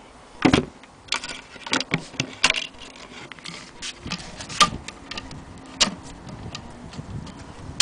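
Antique wooden sewing-machine case being handled: irregular knocks and clicks of wood and metal hardware, the loudest a heavy knock about half a second in.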